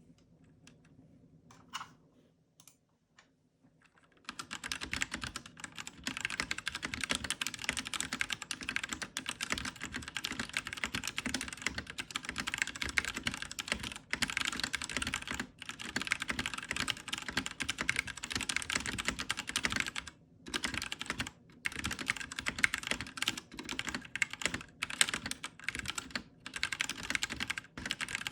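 Fast continuous typing on a Royal Kludge RK84 mechanical keyboard modded with lubed brown switches, tape, foam and stabilizer mods, giving a muted 'thocc' keystroke sound. A few single key presses open it, then steady rapid typing starts about four seconds in, with a few short pauses.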